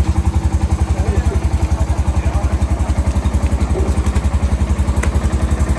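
An engine idling with a steady low throb of about a dozen pulses a second.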